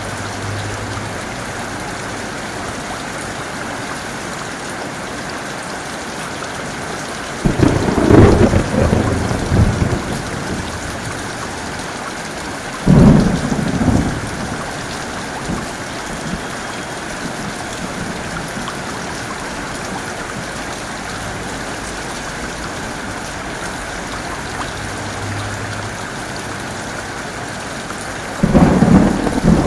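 Heavy rain falling steadily, with three sudden claps of thunder: one about seven seconds in that rumbles on for a couple of seconds, a shorter one about thirteen seconds in, and another near the end.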